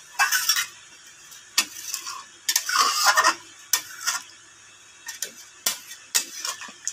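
Steel spatula stirring thin curry gravy in a metal pan: irregular scrapes and clinks of the spatula against the pan, with the longest scrape about two and a half seconds in.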